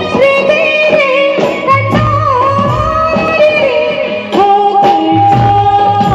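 Live stage band playing Bollywood film music on electronic keyboards and drums: a melodic lead line with ornamented glides over a steady beat.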